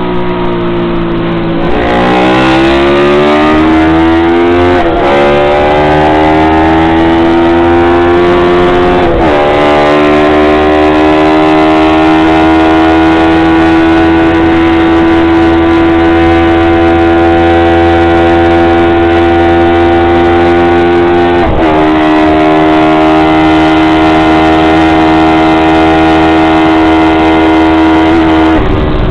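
Honda CB350-based parallel-twin four-stroke race engine heard from on board the bike, accelerating hard with the pitch climbing and dropping at two upshifts in the first several seconds. It then holds a steady high-rev pitch at full throttle with one brief dip about two-thirds of the way through.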